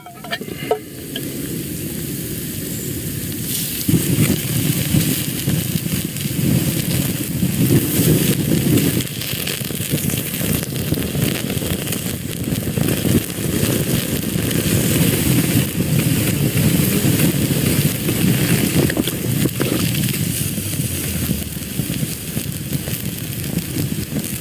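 Steaks sizzling as they cook, a steady dense hiss with many small pops that grows louder about four seconds in.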